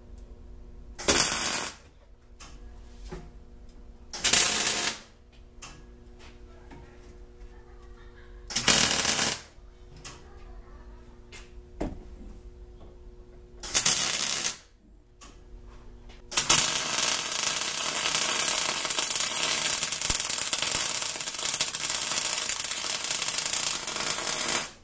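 Wire-feed welder arcing on a steel C-channel frame: four short tack welds, each under a second and a few seconds apart, then one continuous weld bead of about eight seconds running to the end.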